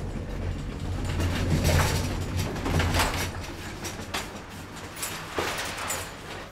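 Loaded wire roll cage trolley being pushed along, its wheels rumbling over the floor and its metal frame rattling with scattered clanks; the rumble is heaviest in the first three seconds, then eases.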